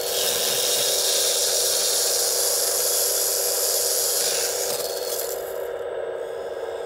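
Motor-driven saw of an RC excavator's grapple-saw head cutting through a tree branch: a loud, even hissing buzz that starts abruptly and stops about five seconds in as the cut finishes. A steady mechanical hum runs underneath.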